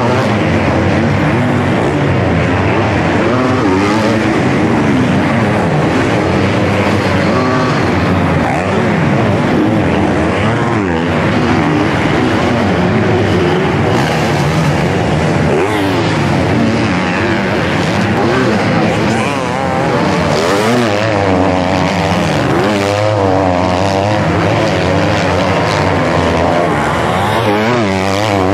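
250cc motocross bike engines racing past, revving up and down through the gears over a steady roar of track noise.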